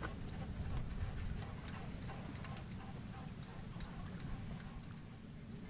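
Spinning reel being cranked to reel in a hooked fish, its mechanism giving off light, irregular ticks, a few a second, that thin out toward the end, over a low steady rumble.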